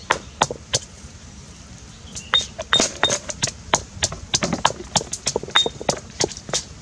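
Stone pestle pounding chopped seasoning ingredients in a stone mortar: regular sharp knocks about three a second, pausing for about a second and a half near the start.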